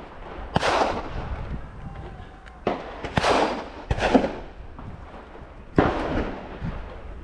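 Several gunshots at irregular intervals, about six in all, each trailed by an echoing tail.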